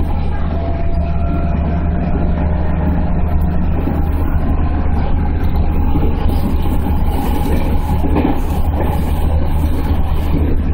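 JR 211 series electric train running along the line, heard from inside its leading motor car: a steady low rumble of the motors and of the wheels on the rails.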